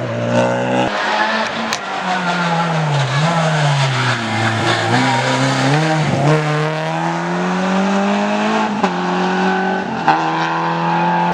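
Rally car engine running hard, its note falling and climbing several times as it shifts gear and accelerates away, with a couple of sharp cracks.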